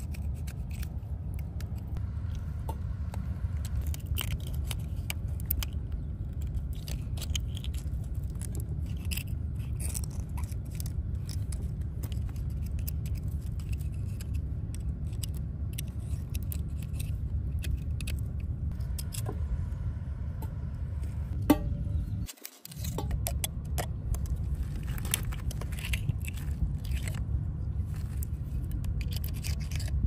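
A metal oyster pick scraping, prying and clicking against oyster shells encrusted on a rock as oysters are pried open, in irregular short scratches and ticks. A steady low rumble runs underneath, broken by a brief dropout about two-thirds of the way through.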